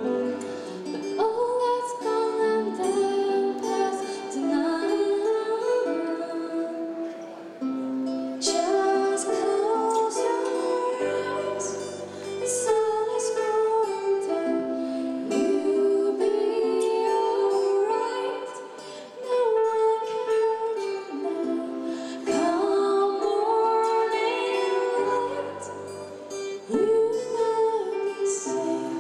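A female voice singing a slow, gentle song into a microphone over plucked acoustic guitar accompaniment, performed live.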